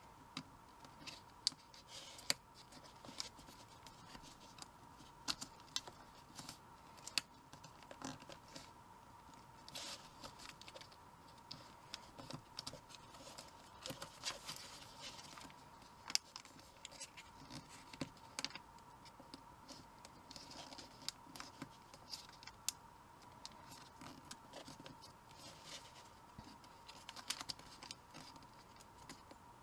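Origami paper being folded and creased by hand: irregular scratchy rustles, soft crinkles and small sharp taps as the fingers press the folds flat. A faint steady tone sits underneath.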